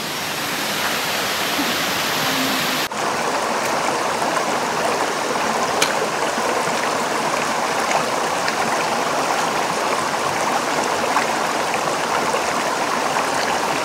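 Steady rush of flowing creek water, cut off for an instant about three seconds in.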